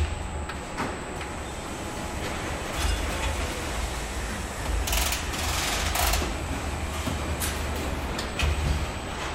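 Car assembly line noise during chassis mounting: a steady low machinery rumble and hum with scattered clicks and knocks, and a hiss lasting about a second midway.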